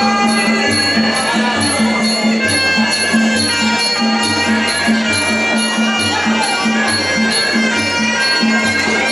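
Sarama, the live Muay Thai fight music: a shrill pi java oboe playing a held, wavering melody over a steady fast beat of klong khaek drums and regular small-cymbal (ching) ticks.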